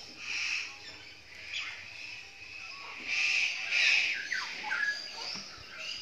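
Eclectus parrot chirping and squawking: a string of short, high calls, the loudest a harsh burst about three to four seconds in, followed by a few quick falling chirps.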